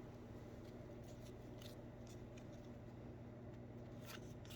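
Faint soft flicks and slides of trading cards being leafed through by hand, a handful of short scattered strokes, over a steady low electrical hum.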